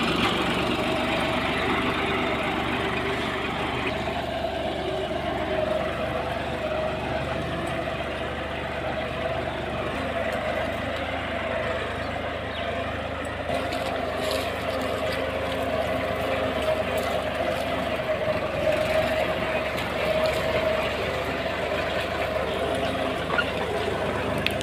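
John Deere 5405 tractor's three-cylinder diesel engine running steadily under load while pulling a tine cultivator through the soil.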